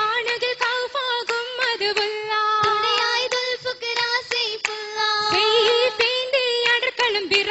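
Oppana: a group of girls singing a Mappila song in unison, with rhythmic hand claps keeping time throughout.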